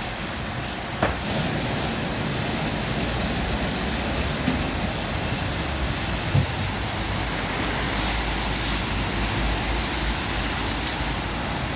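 WashTec SoftCare Pro rollover car wash at work: a steady rush of water spray and brushes over the car, with a short knock about a second in and another about six and a half seconds in.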